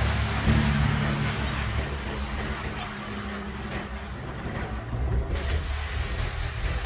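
Diesel dump truck engines: a nearby loaded dump truck's engine running with a low hum that fades over the first couple of seconds, then a Hino dump truck's engine growing louder as it approaches from about halfway through.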